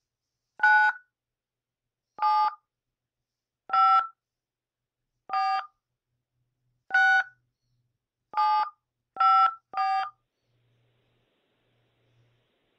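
Eight touch-tone (DTMF) key beeps from a Skype dial pad, each a short two-note tone, keying a name into an automated phone directory. The first six come about a second and a half apart, and the last three come quickly one after another.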